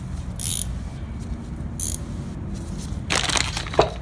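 Plastic zip bag rustling in short bursts, then a louder crunching rustle about three seconds in as hands work around the bagged slave cylinder, over a steady low background rumble.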